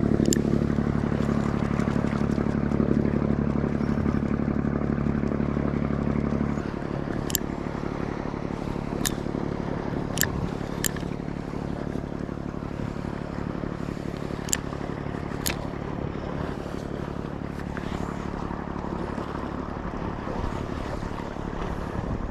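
A steady, low mechanical hum that cuts off abruptly about six and a half seconds in. After it comes an even wash of wind and water noise with a handful of sharp, separate clicks.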